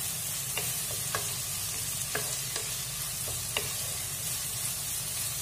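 Chopped vegetables sizzling in hot oil in a nonstick wok as they are stir-fried with a wooden spatula, with a few light knocks of the spatula against the pan.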